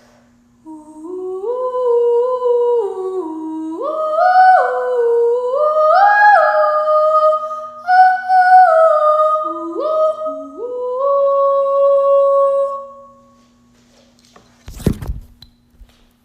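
A person humming a wordless tune in held notes that step up and down for about twelve seconds. A single thump follows near the end.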